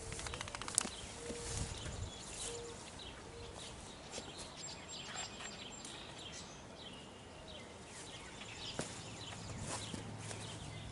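Outdoor ambience with birds calling: a few short, low, hooting notes in the first few seconds and thin high chirps later, over scattered clicks and rustles.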